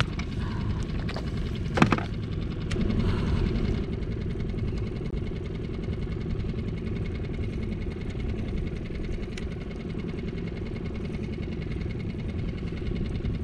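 Small boat's outboard motor idling steadily, with one sharp knock about two seconds in.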